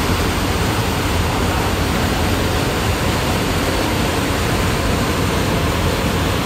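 Steady rushing of a ferry's churning propeller wake, with the low, even drone of the ship's engines underneath.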